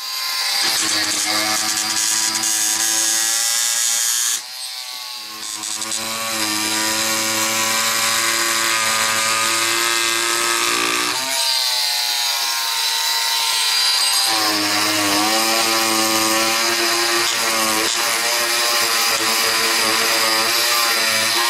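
Milwaukee oscillating multi-tool with a scraper blade running, scraping old foam weatherstripping and glue off an RV door frame. Its buzz wavers in pitch as the blade works and drops briefly about four seconds in.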